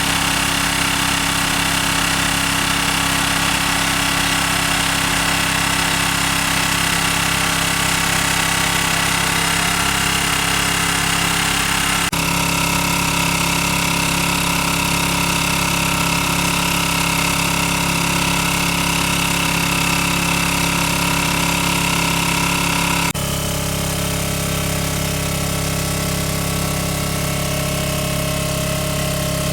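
Small engine running steadily, driving a water pump. Its tone changes abruptly twice, about twelve and twenty-three seconds in.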